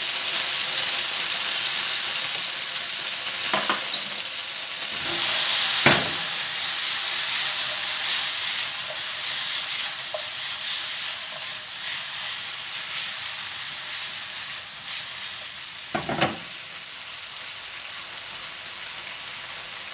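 Chicken, onion and carrot sizzling in a non-stick frying pan over a gas flame as they are stir-fried and tossed, with a few sharp knocks along the way. The sizzle swells about five seconds in and slowly dies down toward the end.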